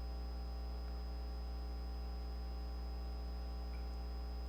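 Steady low electrical hum, like mains hum, with a ladder of overtones and a faint thin high whine, unchanging throughout; nothing else is heard.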